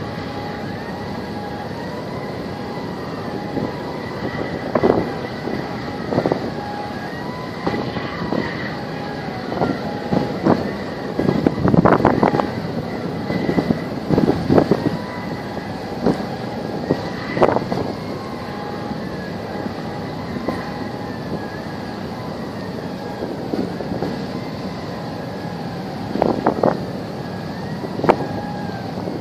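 Wind buffeting the microphone in irregular gusts over a steady hiss of wind and harbour water, the strongest gusts about twelve seconds in and again near the end. A faint tone rises and falls in the background.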